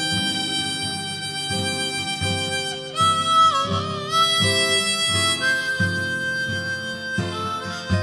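Blues harmonica playing long held notes, with a note bent down and back about three and a half seconds in, over a steady strummed guitar rhythm.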